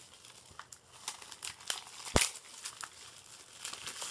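Clear plastic shrink wrap being torn and peeled off a Blu-ray case, crinkling in irregular crackles, with one sharp, louder snap about two seconds in.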